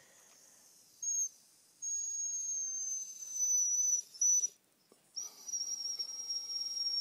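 Dog making a thin, very high whistling whine with its mouth closed, in three stretches: a short one about a second in, then two long, nearly steady ones, the first sliding slightly down in pitch.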